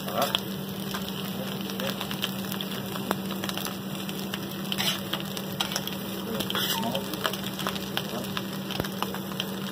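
Cooked ham slices sizzling on a hot flat-top steel griddle while the cheese on top melts: a steady frying crackle with scattered small pops.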